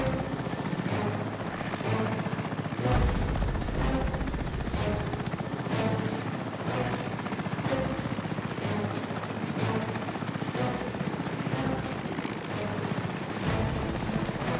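Helicopter running steadily, mixed with a tense film score that pulses about once a second.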